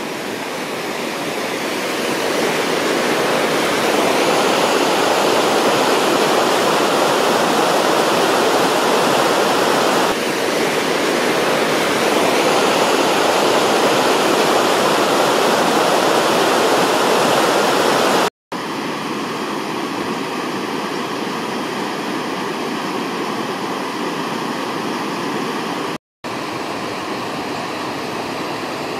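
Stream in spate after heavy rain, its fast, churning muddy current rushing steadily. The sound grows louder over the first few seconds and holds, then after a brief silence about two-thirds of the way in it carries on quieter, broken by another short gap near the end.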